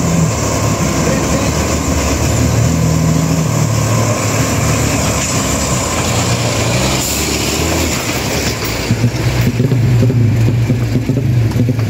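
Diesel engine of a Mitsubishi Fuso Super Great three-axle truck pulling up a dirt hill climb, with tyre and road noise. It grows louder about three quarters of the way through as the truck passes close by.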